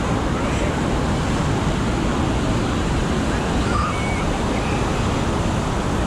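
Steady rush of ocean surf mixed with wind noise on the microphone, with a few faint short high sounds in the background about four seconds in.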